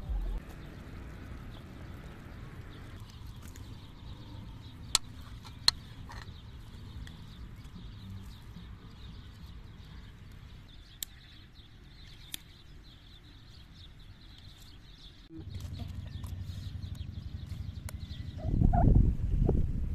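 Farmyard ambience with faint sounds of poultry, broken by two sharp clicks about five seconds in. Near the end, wind buffets the microphone loudly.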